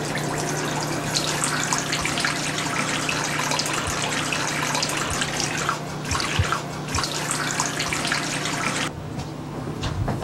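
Kitchen tap running into a stainless steel sink, with uneven splashing as hands work under the stream. The water shuts off about nine seconds in.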